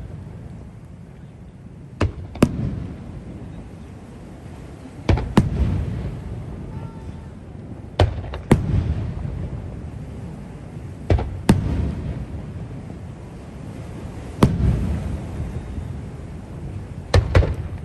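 Aerial firework shells bursting: sharp booms, mostly in pairs about every three seconds, each followed by a rolling low rumble, with a quicker cluster of bangs near the end.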